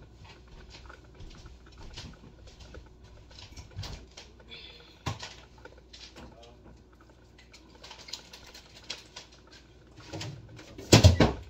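Kitchen handling noises: scattered light clicks and knocks as a refrigerator door is opened partway through, then a loud clatter and rustle near the end.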